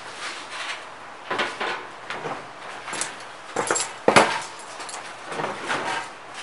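Copper sheet-metal still parts being handled and set down on a wooden workbench: irregular clanks, knocks and scrapes, the loudest a sharp knock about four seconds in.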